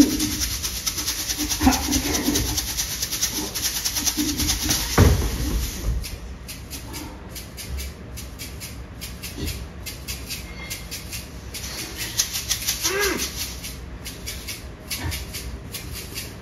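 Taiko stage percussion: a rapid, dense rattling beat with a deep drum hit about five seconds in, then thinner, broken high clicking. A few short gliding calls sound over it.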